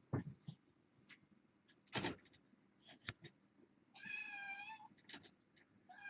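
A young kitten meows once, a long, slightly wavering high call about four seconds in, and starts another right at the end. Short soft knocks and clicks are scattered before it, the loudest about two seconds in.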